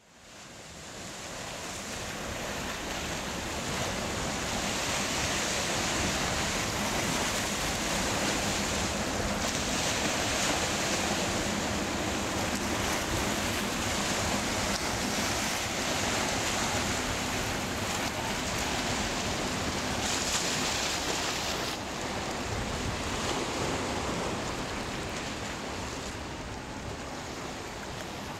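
Sea waves washing and breaking onto a rocky, pebbly shore, as steady surf. It fades in over the first few seconds.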